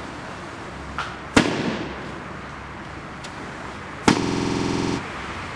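Aerial fireworks bursting: a small crack about a second in, then a loud bang, and a second loud bang about four seconds in followed by a buzz lasting about a second, typical of swimming-fish effects.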